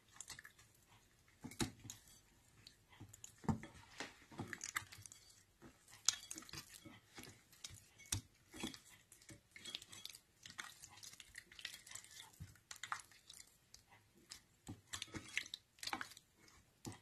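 Hand kneading raw chicken pieces in a glass bowl, working in a melted-butter, pepper and salt marinade: faint, irregular wet squelches and smacks.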